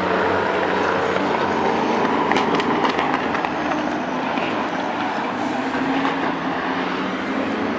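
Race car engines running on the circuit, heard as a steady mix of engine noise, with a few light clicks about two to three seconds in.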